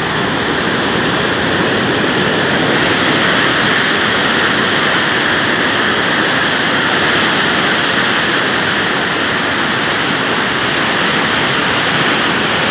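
Floodwater rushing in a loud, unbroken wash of noise.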